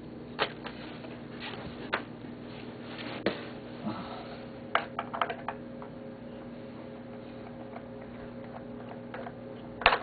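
Scattered light clicks and taps of small parts and tools being handled during hand work on a player-piano stack, with a quick cluster of taps mid-way and the loudest knock near the end. A steady low hum runs underneath.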